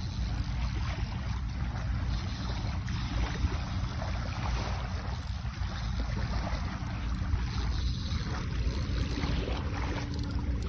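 Steady low wind rumble on the microphone, over the soft wash of light surf at the shoreline.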